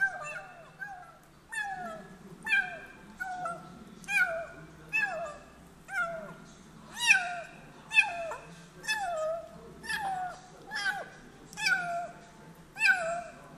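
Kitten making short, high mews while eating, about one a second, each call falling in pitch.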